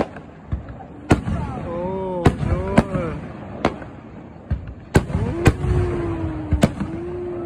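Aerial fireworks show: shells bursting in sharp bangs, about eight of them at irregular intervals, over a steady low rumble from the display.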